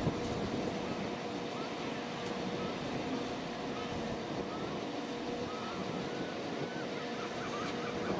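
Diesel locomotive engine running steadily, a constant low hum with a steady tone, typical of a Class 66's EMD two-stroke engine.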